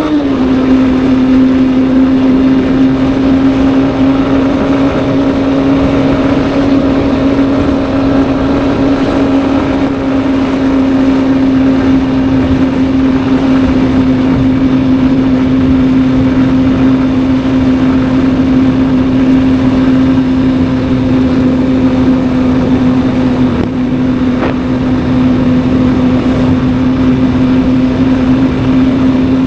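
Honda Hornet 2.0 motorcycle's single-cylinder engine running at a steady cruising speed, its pitch dipping slightly about half a second in and then holding even, with wind rush over it.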